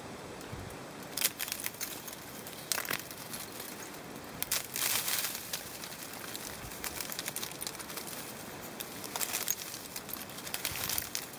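Ice-glazed shrub twigs crackling and clinking as a gloved hand grips and bends them, the glaze ice from freezing rain cracking. The crackle comes in several short bursts, with the longest about five seconds in.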